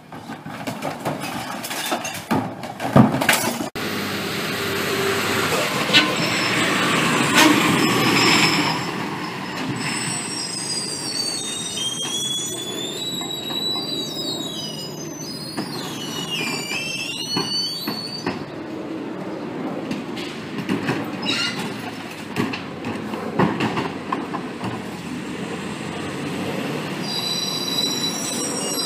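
Mack/McNeilus rear-loader garbage truck with a natural-gas (CNG) engine running while its packer works a load of recycling. A few sharp knocks come near the start. Long high-pitched metal squealing, wavering up and down in pitch, comes midway through and again near the end.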